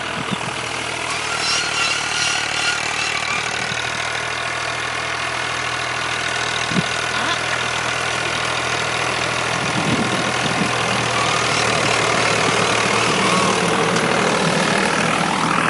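Diesel tractor engine running steadily as it pulls a cultivator through ploughed soil, growing louder as it draws near.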